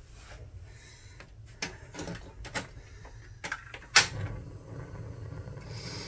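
Several sharp knocks and clicks of objects being handled and set down, at uneven intervals, the loudest about four seconds in.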